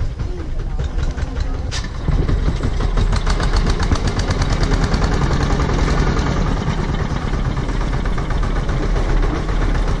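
Tractor engine running steadily with a rapid, even chugging while pulling a loaded trailer over a dirt road; it gets louder about two seconds in.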